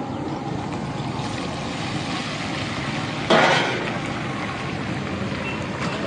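Green chillies frying in a kadhai of hot oil: a steady sizzle, with a sudden loud burst of sizzling about three seconds in that dies down within half a second as the oil froths up.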